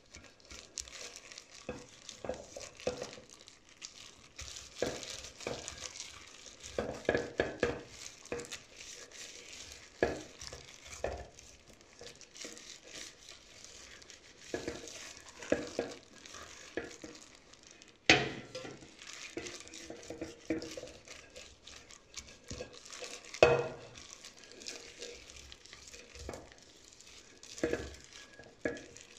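A utensil stirring a cake mixture, with irregular scraping strokes and two sharper knocks in the second half.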